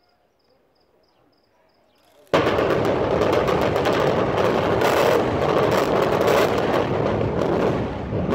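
Faint insect chirping, then about two seconds in the explosive demolition of a multi-storey building begins with a sudden loud blast. It runs on as a continuous loud crackling din of detonating charges and the collapsing structure.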